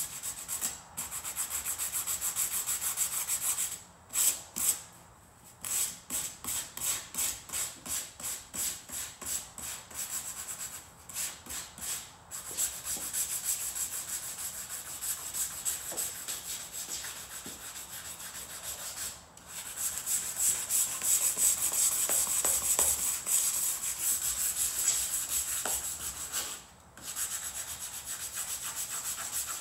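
Hand-sanding with 220-grit sandpaper on a foam sanding block, rubbed back and forth along the steel window frame of a Toyota Land Cruiser 80 Series tailgate to scuff it for primer. A scratchy rasp that comes in strokes of about two a second for a stretch and as steadier rubbing elsewhere, with a few short pauses.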